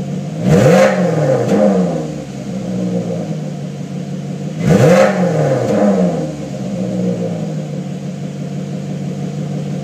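Maserati Quattroporte Sport GTS's 4.7-litre V8 on its stock exhaust, idling and revved twice about four seconds apart. Each rev is a quick rise and fall in pitch, with a smaller blip just after, before it settles back to a steady idle.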